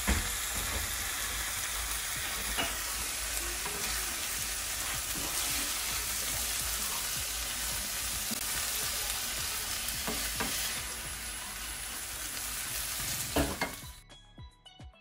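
Saltfish sautéed with cabbage, tomato and sweet peppers sizzling steadily in a frying pan, with a few short taps of a utensil against the pan as it is stirred. The sizzle cuts off near the end.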